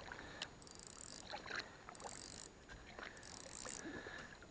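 Fishing reel being cranked in three short bursts about a second and a half apart, reeling in a hooked bass that is still fighting; faint.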